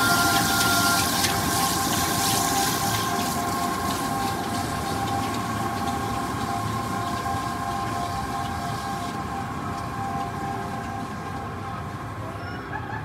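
Roller coaster train running along its steel track: a steady rumble with several sustained whining tones that slowly fade, and a few brief squeals of rising and falling pitch near the end.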